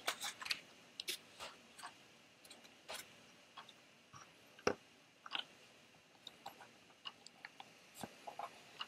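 Commodore 1541 floppy drive running while it formats a disk. Its read/write head steps across the tracks with faint, irregular clicks and knocks, one a little louder about halfway through.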